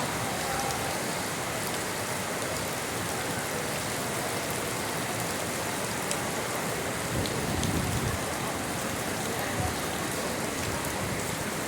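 Steady rain falling on surfaces, an even hiss throughout, with a short low rumble about two-thirds of the way in.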